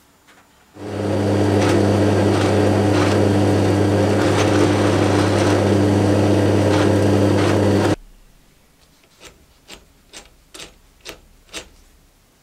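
Drill press running and drilling through an aluminium chassis plate: a steady motor hum with cutting noise that starts just under a second in and stops abruptly. Then six light clicks, about two a second.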